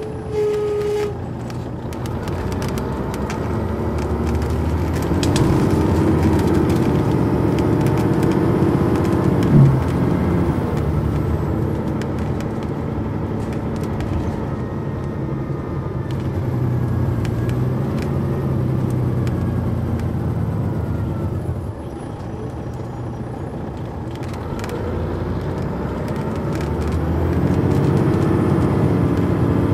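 Detroit Diesel Series 60 engine of a 2002 MCI D4500 coach heard on board, pulling away under load. Its note rises, then drops sharply about ten seconds in with a short loud thump, like an upshift of the Allison automatic transmission. The engine eases off a little after twenty seconds and climbs again near the end, with a brief tone just at the start.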